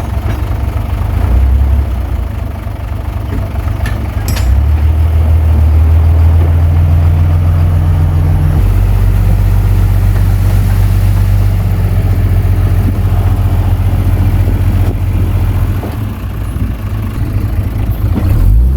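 Komatsu D21P bulldozer's diesel engine running, a loud low drone that shifts in pitch and level a few times as it works, with a couple of brief knocks about four seconds in.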